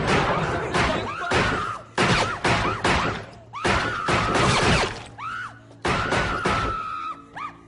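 A series of loud gunshots about a second or two apart, with glass shattering, and a woman's high scream held between the shots.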